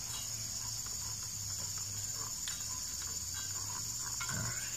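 Steady high-pitched insect chorus, with a few faint dull ticks from a fingertip flicking a new steel brush cutter blade; the blade gives no ring, the sign that it has no cracks.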